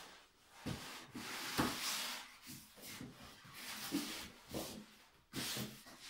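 Packaging being handled off-camera: a run of irregular rubbing and rustling scrapes as polystyrene and cardboard are moved about.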